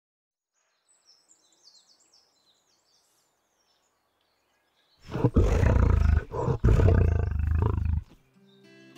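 A big cat roaring: one loud, deep roar of about three seconds, broken twice by brief pauses, after a few faint high chirps.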